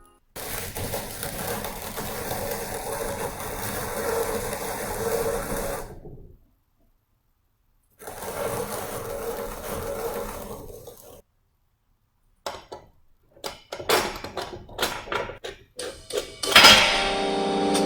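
Kinu M47 Classic hand coffee grinder being cranked, crunching through beans in two stretches of about six and three seconds. A few scattered clicks and knocks follow, and music with piano comes in near the end.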